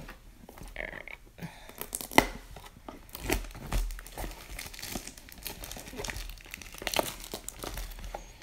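Cellophane shrink-wrap on a cardboard trading-card box crinkling and tearing as it is stripped off, in irregular sharp crackles and snaps.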